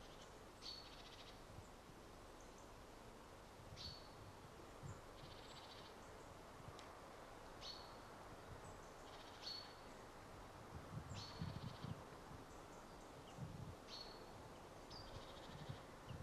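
Faint birdsong from a small bird: short high chirps every couple of seconds, with buzzy trills between them. There are a few soft low thumps about two-thirds of the way through.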